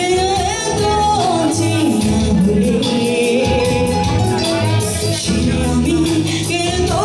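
A woman singing a Bengali song live into a microphone, backed by a band with electric guitar and keyboard playing a steady beat.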